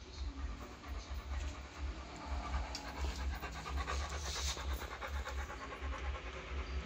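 Dogs panting with open mouths, quick and rhythmic.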